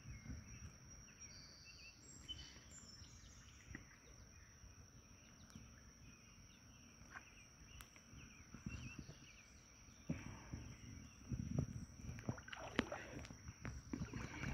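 Shallow creek water splashing and sloshing as a caught smallmouth bass is handled and landed by a wading angler, faint at first and louder with scattered splashes over the last few seconds. A few faint bird chirps early on.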